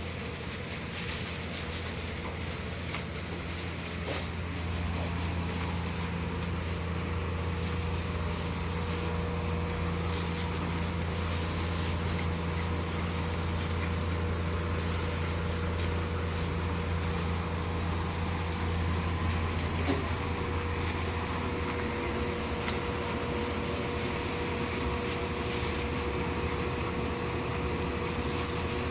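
Steady mechanical hum: a constant low drone with a faint steady tone above it and an even hiss.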